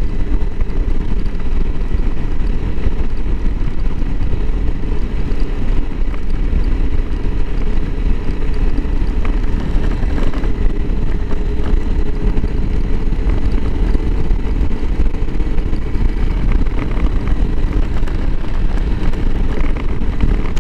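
Honda CRF300L Rally's single-cylinder engine running steadily as the motorcycle rides along, mixed with a dense rush of wind noise.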